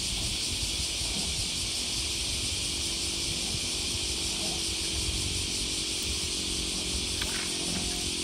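A steady high hiss over a low rumble, with a fainter hum joining partway through. Near the end come a few faint splashes as a hooked fish swirls at the water's surface.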